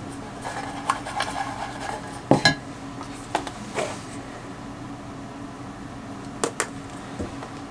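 Light clicks and clinks of makeup brushes and palettes being handled on a table as a different brush is picked up: scattered single taps, with two quick pairs, one about two and a half seconds in and one near the end.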